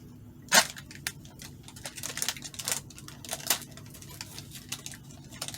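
Plastic ration pouch of dried fruit and nuts being opened and handled: a run of irregular crinkles and clicks, with one sharper crack about half a second in.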